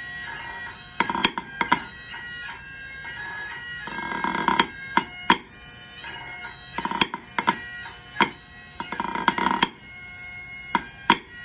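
A bagpipe tune at about 81 beats a minute, drones and chanter sounding steadily, with wooden drumsticks playing along on a rubber practice pad in short groups of sharp taps and rolls.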